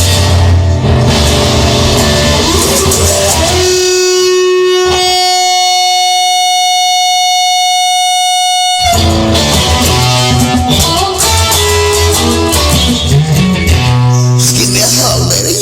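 Instrumental break of a song with the full band playing a steady beat. About four seconds in, the band drops away to a single sustained note held for roughly five seconds, then the full band comes back in.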